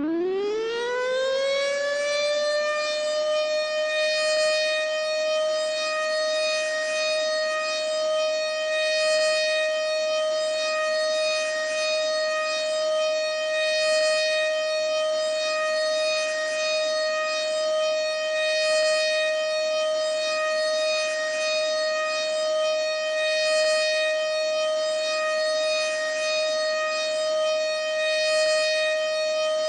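ASC OM-120 three-phase electromechanical outdoor warning siren winding up quickly to full speed, then holding one steady, loud pitch: the steady Alert signal.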